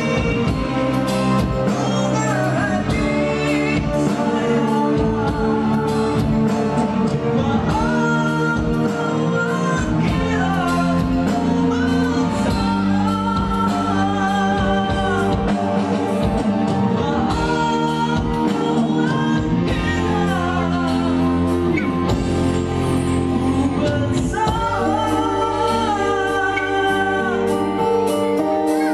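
A man singing into a microphone over a live Yamaha arranger keyboard backing with a steady beat, all amplified through a PA.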